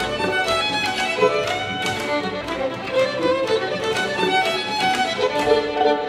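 Solo violin with a string quartet of two violins, viola and cello, playing a rhythmic passage of bowed notes with regular accented strokes.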